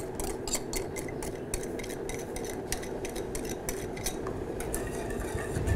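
A utensil stirring milk in an aluminium saucepan, clicking against the pot about three to four times a second, over a steady low hum.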